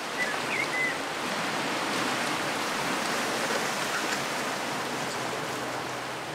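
Small sea waves washing steadily over a rocky shore, heard as an even hiss, with a couple of faint high chirps near the start.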